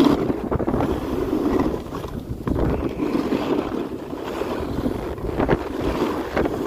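Wind rushing over the microphone while sliding fast down a groomed ski piste, with the hiss and scrape of edges on the snow coming and going throughout.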